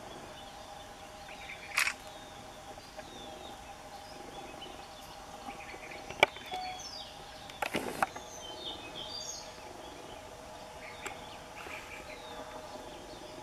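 Outdoor ambience of birds chirping here and there over a steady hum, with a few sharp knocks about two, six and eight seconds in, the one near six seconds the loudest.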